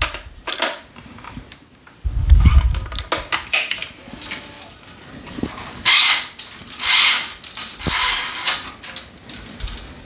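Tennis racket being strung on a stringing machine: string drawn through the cross weave in two long scraping pulls about six and seven seconds in, with scattered clicks of clamps and machine parts and a low thump about two seconds in.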